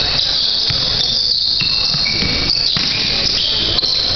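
Basketball being dribbled and sneakers on a hardwood gym floor, with irregular low knocks, under a steady high-pitched hiss with short squeaking tones in it.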